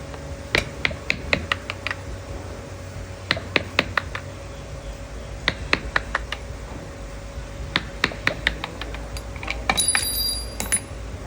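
Light hammer taps on metal in quick runs of four to six strikes, about four a second, with short pauses between the runs, typical of a farrier's hammer at work. A brief high ringing comes in near the end.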